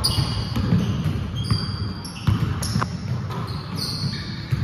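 A basketball bouncing repeatedly on a hardwood court, with several short, high squeaks from sneakers on the floor.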